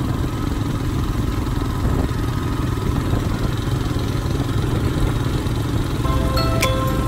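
Motorcycle engine running steadily at riding speed, heard from on the bike with wind and road noise. Background music comes back in near the end.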